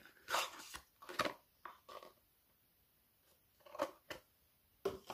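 A small cardboard carton being handled and opened and a cream jar slid out of it, as a series of short rustles and scrapes: several in the first two seconds, a lull, then a few more near the end.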